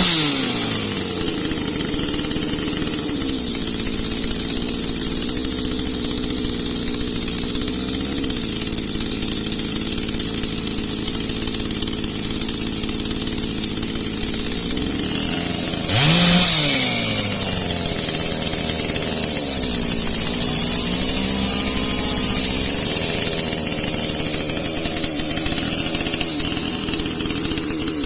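Echo CS-680 two-stroke chainsaw engine idling steadily. It is settling down from a rev at the start and is blipped up once briefly about halfway through before dropping back to idle.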